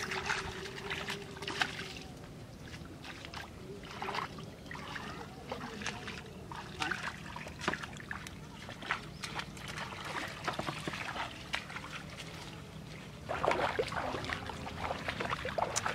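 Water sloshing and splashing in irregular bursts, busiest in the last few seconds, with a faint steady hum under the first couple of seconds.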